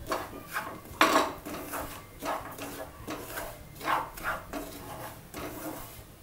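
Wooden spatula scraping a nonstick frying pan and stirring dry semolina as it is roasted, in a run of short irregular strokes with a louder scrape about a second in.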